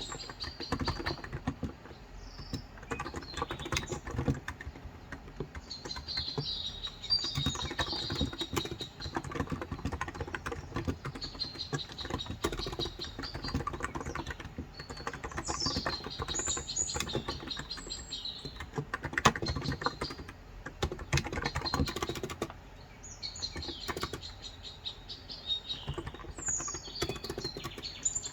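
Continuous typing on a COX Endeavour electrostatic capacitive tenkeyless keyboard with 35 g switches: a dense run of key strokes with brief lulls. Small birds chirp and twitter behind it.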